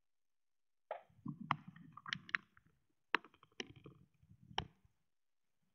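Beagle mouthing and chewing a toy duck: a few sharp clicks over rustling with a low rumble, starting about a second in and dying away near the end.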